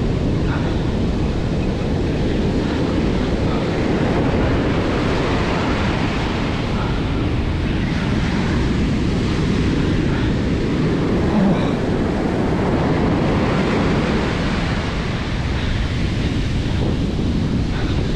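Ocean surf breaking and foamy wash running up the sand, a steady rushing noise, with wind buffeting the microphone.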